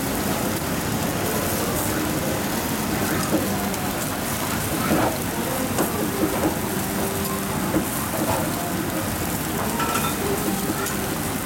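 Kobe beef trimmings sizzling over charcoal on a wire grill mesh, the fat dripping into the flames: a steady hiss with scattered pops and clicks.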